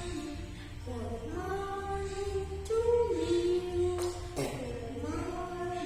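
Singing over a backing music track, the voice holding long notes that slide between pitches.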